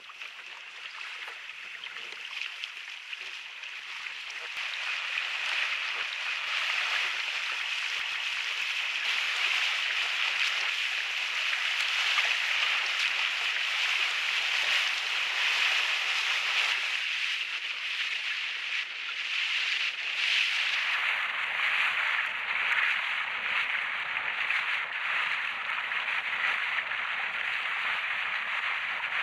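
Steady rushing hiss of wind over a camera flown on a power kite, growing louder a few seconds in and then holding.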